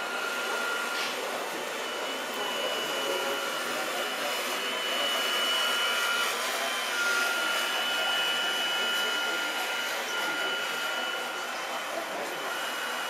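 Small electric motors of radio-controlled scale construction models, a Liebherr L576 wheel loader working beside a MAN truck, whining steadily. Thin high tones come and go over the whir as the machines work.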